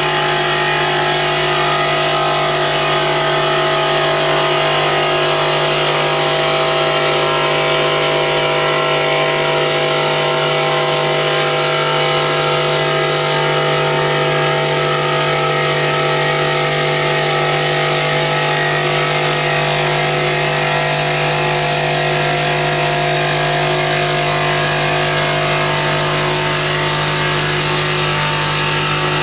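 A CNC stone polishing machine running steadily, its spinning polishing head working over a stone surface with a constant motor hum and a rubbing, grinding noise.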